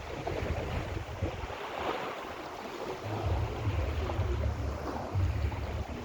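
Sea waves breaking and washing up the beach, a steady rush that swells about two seconds in. Wind buffets the microphone with a low rumble that drops away briefly and comes back about halfway through.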